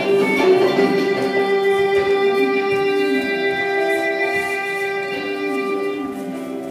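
Music with guitar: sustained plucked-string notes, one held low note prominent, slowly fading toward the end.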